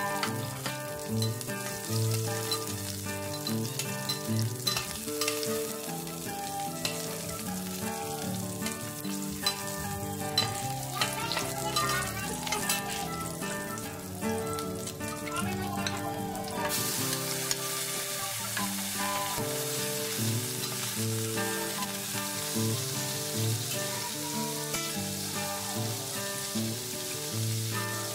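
Garlic and red onion sizzling in hot oil in a stainless steel pan, stirred now and then with a slotted metal spatula. A little past halfway the sizzle turns brighter and hissier, and by the end chopped pork is frying in the pan. Soft background music plays underneath.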